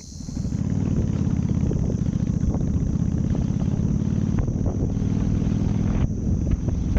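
Honda V-Twin Magna motorcycle's V-twin engine running with an even low throb. It rises to full level within the first second, as the bike sets off.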